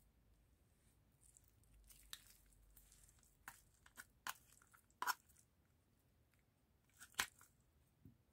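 Fork scraping canned tuna out of its tin and breaking it up over chopped salad: a soft scraping, then a few sharp taps, the loudest about five and seven seconds in.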